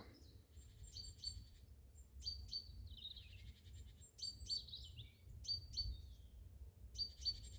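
Great tits giving alarm calls: clusters of short, sharp, high notes and rattles repeated over and over, a warning that a human has been spotted.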